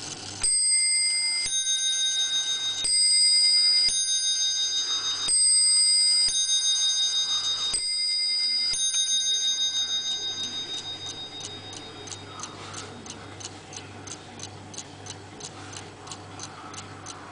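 Warmink bracket clock's movement striking on its two bells. Eight strokes alternate between the two bells in four ding-dong pairs, about a second apart. The ringing then dies away, leaving the steady tick of the movement.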